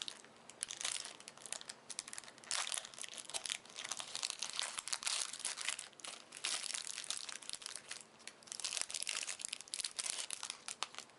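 Wrapper of a pack of trading cards being crinkled and torn open by hand, in irregular crackling bursts that stop just before the end.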